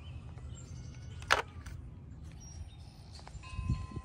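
A single sharp plastic snap about a second in, as the white retaining clip of the roof-channel trim is pried out. Under it there is a steady low rumble on the microphone, a few faint bird chirps, and a couple of soft handling thumps near the end.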